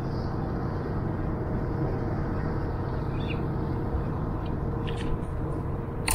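Wind buffeting an action camera's microphone outdoors: a steady low rumble, with a few faint clicks near the end.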